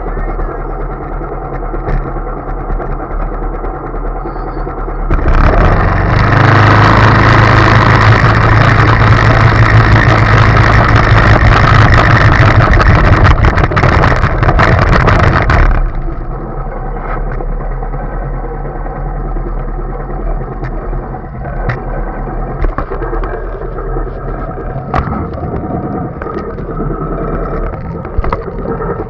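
Go-kart's small engine running at idle, then opened up and run hard for about ten seconds as the kart drives, much louder, before dropping back to a steady idle.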